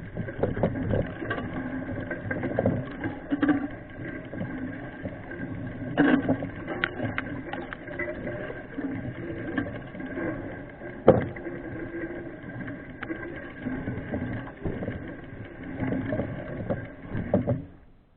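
Mountain bike rolling over a rough dirt trail: an irregular rattle and clatter with frequent sharp knocks from the bike jolting over bumps. It cuts off suddenly near the end.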